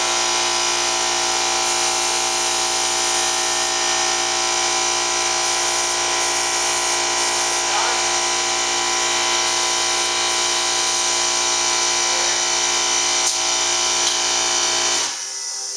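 Air compressor running steadily with a whine, while the paint spray gun hisses in bursts of a second or two. It cuts off suddenly near the end.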